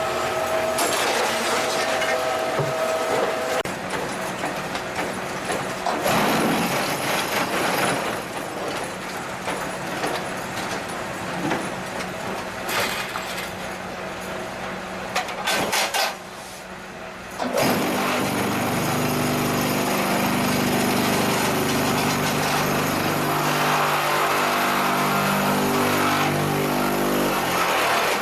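QTJ4-25 semi-automatic concrete block machine working through its cycle: continuous machinery noise with a short drop a little past halfway, then a steady hum for most of the last ten seconds.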